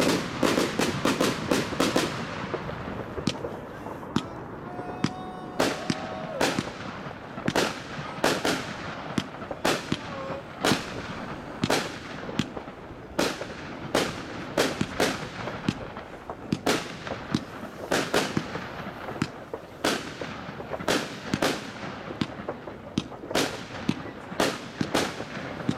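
Consumer firework cakes firing. A dense barrage of overlapping shots and bursts comes in the first two seconds, then single sharp bangs follow at roughly one a second over a continuous background of fireworks noise.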